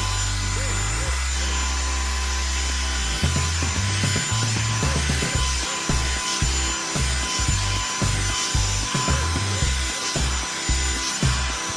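Revlon One Step hot-air brush blowing steadily, its bristles rubbing and dragging through hair in repeated strokes.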